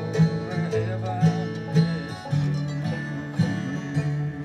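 Bluegrass string band playing: banjo, mandolin and acoustic guitar picking over an upright bass.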